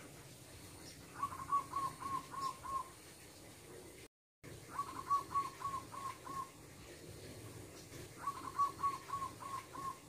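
A wild zebra dove (perkutut) singing: three phrases, each a quick run of about six soft, evenly spaced cooing notes.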